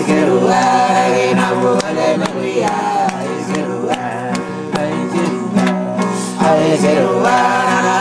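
Singing with a strummed acoustic guitar: a melody carried over regular strums.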